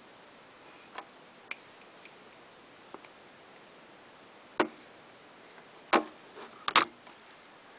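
Scattered light clicks, then three sharp knocks in the second half, the last two close together.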